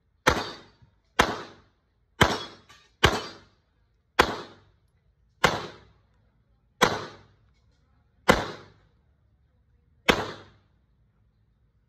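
Nine pistol shots, a little over a second apart at first and spacing out toward the end. Each is a sharp crack that dies away over about half a second.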